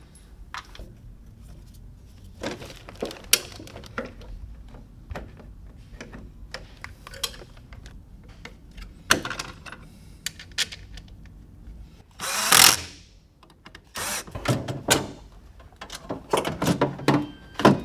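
Clicks, knocks and clatter of tools and metal parts while a car's window regulator and its motor are unbolted and bolted. A power tool runs briefly about twelve seconds in, the loudest sound.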